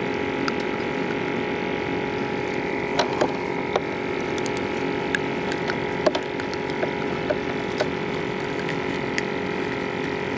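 Steady machine hum holding several constant tones, with scattered light clicks and taps over it.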